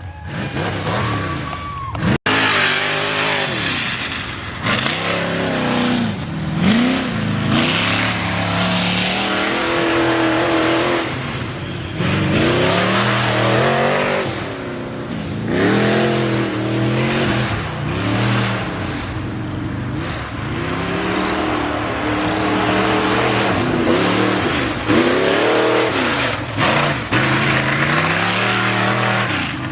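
Off-road race vehicle's engine revving hard and easing off over and over as it drives a slalom course, its pitch climbing and falling every second or two, over a rough noise of tyres on dirt. The sound cuts out for an instant about two seconds in.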